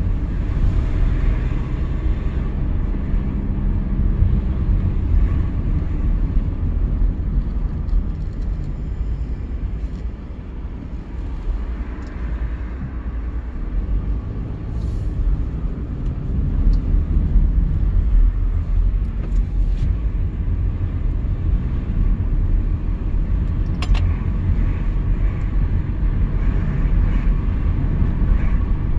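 Car driving along a town road: a steady low rumble of engine and tyre noise that eases briefly about ten seconds in, with one sharp click in the last third.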